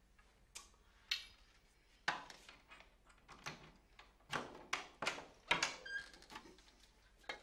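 Irregular clicks and knocks of a door's knob and latch being worked and a wooden door pulled open, growing busier about four seconds in.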